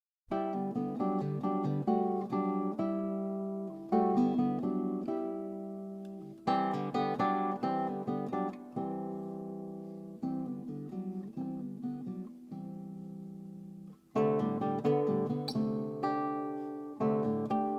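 Background music: solo acoustic guitar playing plucked notes and chords in phrases, starting out of silence.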